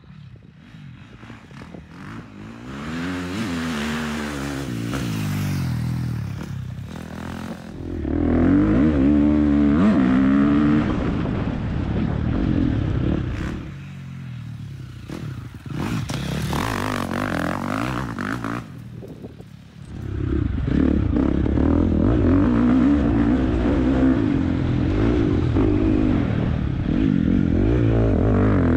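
Off-road dirt bike engine revving up and down repeatedly as the bike is ridden, in several short segments that start and stop abruptly.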